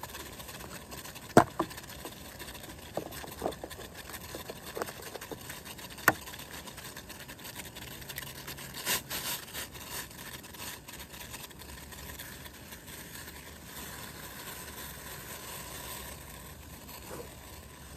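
Steady hiss of a portable butane camp stove burning under a pot of steaming water, with a few sharp knocks and clinks as an egg is cracked and broken into the pot about nine seconds in.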